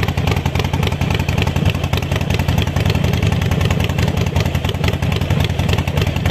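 Harley-Davidson Forty Eight's air-cooled V-twin idling steadily through Vance & Hines Short Shots exhaust, with a loud, even beat of exhaust pulses.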